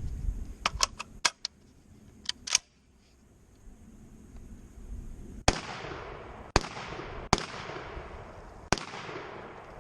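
A Rock Island Armory VR60 semi-auto 12 gauge shotgun fired four times in fairly quick succession from about five seconds in, each shot followed by a long fading echo. Before the shots come a few light metallic clicks from handling the gun.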